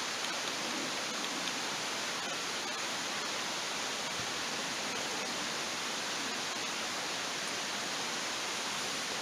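Steady, even rushing of water, with no pitch, rhythm or break.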